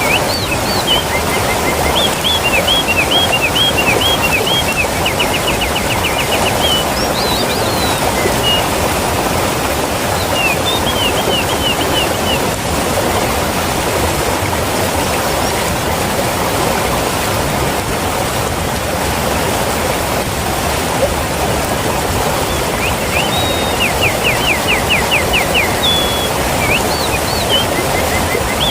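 Waterfall rushing steadily, swollen in size after rain. A bird sings short series of quick repeated chirps over it several times, near the start, twice in the middle and again near the end.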